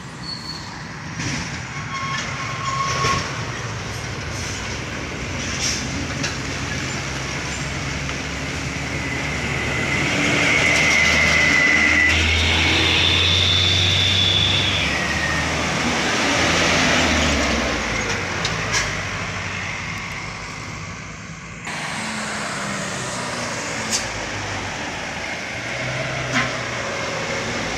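Buses, a car and a truck driving past close by on a winding road, with engine and tyre noise. The loudest pass comes about ten to seventeen seconds in, with a high steady whine that jumps higher partway through. The sound changes abruptly a little after twenty seconds.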